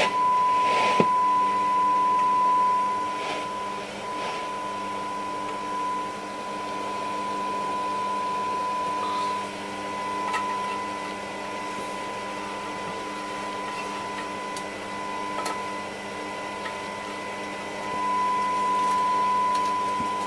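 Steady test tone from a transistor radio's loudspeaker, the modulation of a signal generator tuned in on FM, over faint hiss. The tone swells and fades as a tuning trimmer is turned: the FM front end is being peaked for maximum output during alignment.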